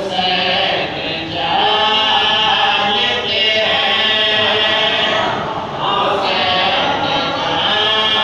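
Several men singing a Shia devotional qasida together without instruments, in long held phrases with short breaks between them.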